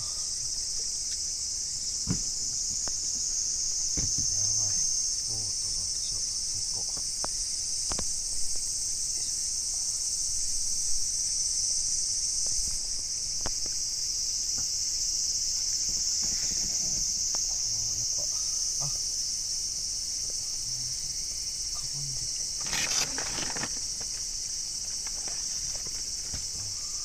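Steady high-pitched chorus of insects, with scattered light knocks and a brief noisy burst about 23 seconds in.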